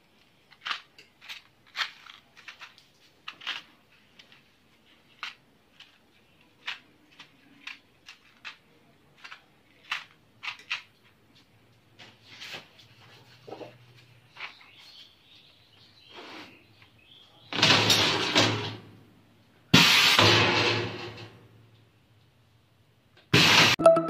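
Light plastic clicks as clear blister cups filled with whole spices are set one by one into the pockets of a blister-sealing machine's mould tray. Near the end come two loud rushing noises, each a second or two long, then a short loud burst.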